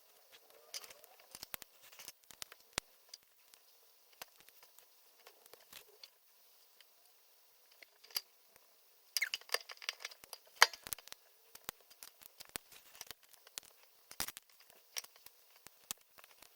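LEGO bricks being handled and snapped together: scattered small plastic clicks and taps, with a denser flurry of louder clicks about nine to eleven seconds in.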